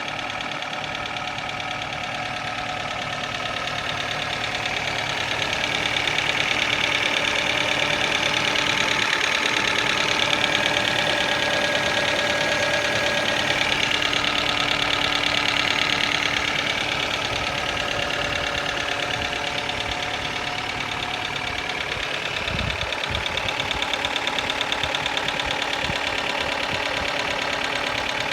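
Kia Ceed engine running with a cyclic clacking knock from the upper part of the engine. The sound grows louder for a stretch in the middle, and a low thump comes about 22 seconds in.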